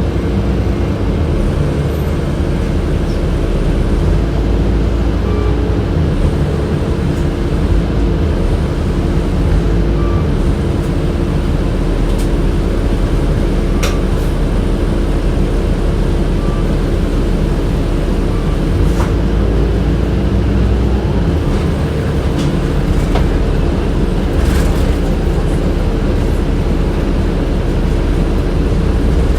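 Inside a 2007 Orion VII city bus on the move: a steady multi-tone hum from the air-conditioning system over the bus's low engine and road rumble, with a few short rattles or knocks.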